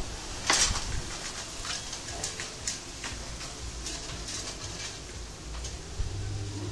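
Child's bicycle rattling and ticking as it rolls over concrete: scattered light clicks over a low rumble. A steady low hum comes in near the end.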